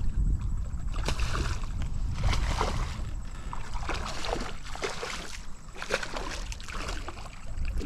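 Water splashing and sloshing as a hooked redfish thrashes at the surface beside the boat during the fight, with wind rumbling on the microphone.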